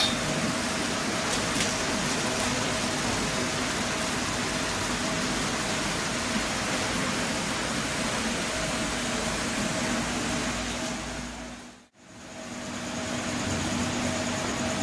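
Steady mechanical hum and hiss with a constant low tone, like a motor running continuously. It fades out to near silence about twelve seconds in, then fades back up.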